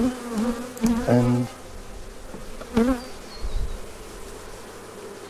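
Honeybees buzzing in a steady hum around an open hive full of frames.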